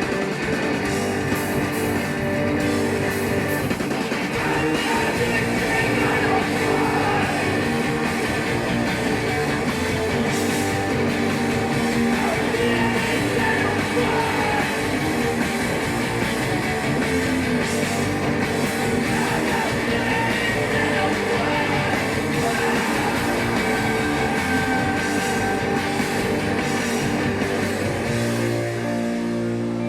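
Live rock band playing loud, with electric guitars and a drum kit. Near the end the full band sound thins out to a sparser part.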